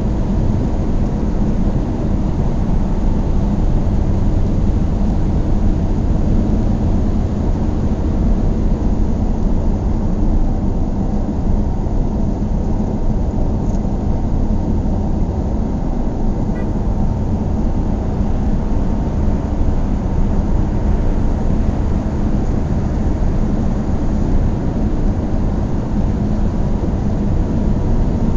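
Car driving at a steady speed: an even rumble of engine and road noise, heaviest in the low end, with a faint steady hum.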